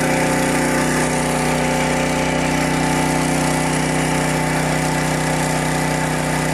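Small pull-start gasoline engine of a portable fire pump running steadily at raised RPM, pumping pool water out through a fire hose.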